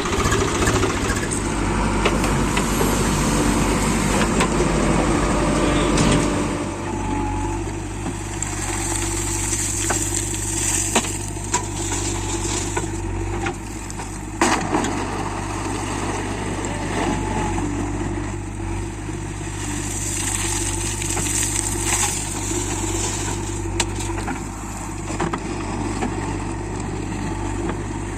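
Diesel engine of a JCB 3DX backhoe loader running steadily while loading mud. It gets a little quieter about six seconds in, and a few sharp knocks come through now and then.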